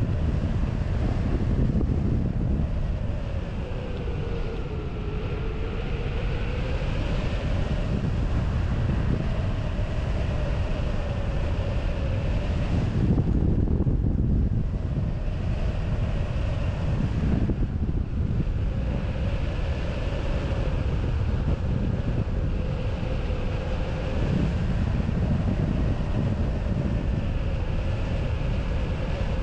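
Airflow buffeting the microphone of a hang glider in flight, a steady low rush with a humming tone underneath that slowly wavers in pitch.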